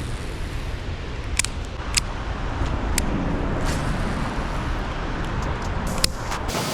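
Steady rumble of road traffic passing, with a few short sharp clicks; the low rumble drops away abruptly near the end.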